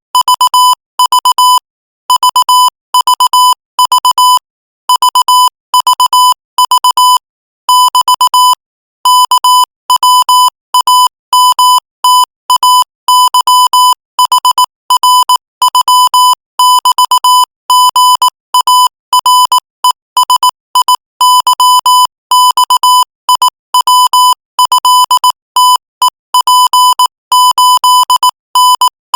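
Morse code at 22 words per minute sending Thai text: a single steady beep keyed on and off in rapid dots and dashes, with short pauses between words.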